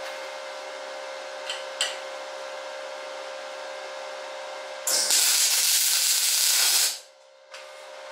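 An electric welding arc laying a tack weld on a steel pitbike frame tube: a loud, even crackling hiss lasting about two seconds that starts about five seconds in and cuts off suddenly. A steady hum from the welder's powered-air respirator blower runs underneath, with two light clicks before the weld.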